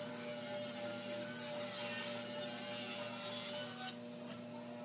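Table saw cutting a board: the blade's cutting noise over the steady hum of the running saw. The cut stops suddenly about four seconds in, and the saw keeps running.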